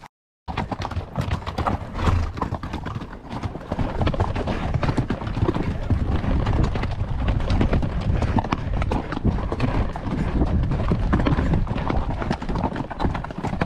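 Horses walking on a rocky desert trail, their hooves clip-clopping in a dense run of strikes over a steady low rumble.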